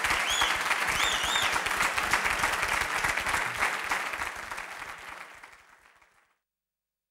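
Audience applauding, with a few short high whistles about a second in; the clapping fades out about six seconds in.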